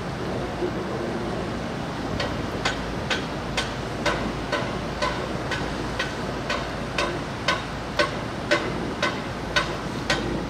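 Steady rushing noise of wind and rain, with a run of sharp, ringing knocks at about two a second starting about two seconds in.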